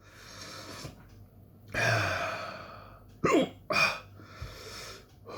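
A man's heavy breathing against the burn of a Carolina Reaper chili: a long, loud sighing exhale about two seconds in, then two short, sharp hiccups a half-second apart, falling in pitch, and softer breaths.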